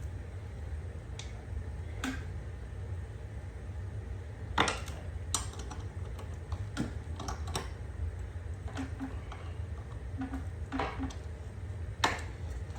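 Scattered metallic clicks and knocks of tools and a lawn mower blade being handled as the blade is bolted back onto the mower, over a steady low hum.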